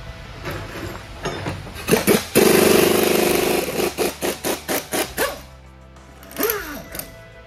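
Pneumatic impact wrench undoing bolts on a truck transmission case: one long rattling burst, then several short bursts in quick succession.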